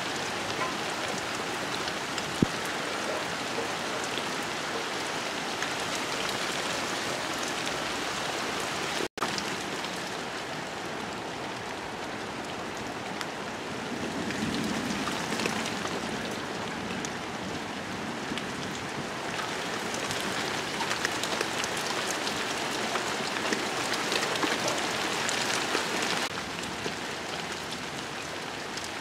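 Steady heavy rain pattering on leaves and on a pond's surface, a dense, even hiss of drops. A single sharp click about two seconds in, and the sound breaks off for an instant about nine seconds in.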